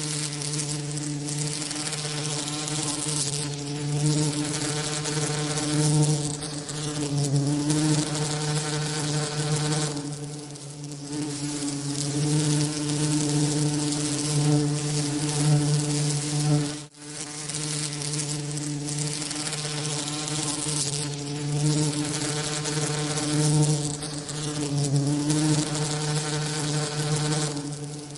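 Bee wings buzzing in a steady drone: a low hum with a ladder of overtones over a hiss that reaches high up, mixed as a tinnitus masking sound. It swells and eases a little and cuts out for a moment a bit past halfway before carrying on.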